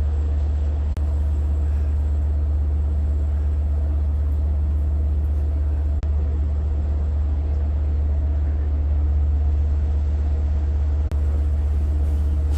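Long Island Rail Road diesel locomotive idling at the platform with a steady low hum.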